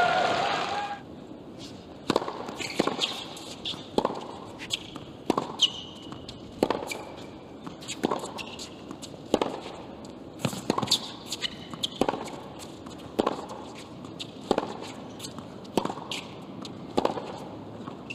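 Tennis balls struck back and forth with rackets in a long baseline rally on a hard court, a crisp hit about every 1.3 seconds, with a few short high squeaks between strokes.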